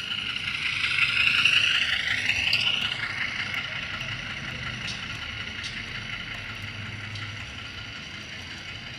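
HO-scale CC206 diesel locomotive model's digital sound decoder playing engine sound through its small speaker, thin and high with little bass. It swells to its loudest about one to three seconds in, then settles to a steady run.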